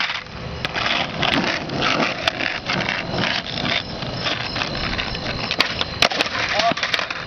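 Skateboard wheels rolling on an asphalt street, with several sharp clacks of the board hitting the pavement, the loudest about six seconds in: a skate trick attempt that just misses.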